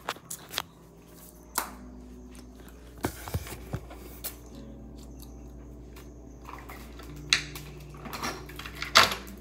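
Scattered clicks and knocks of things being handled at close range, the sharpest knock near the end, over a steady low hum.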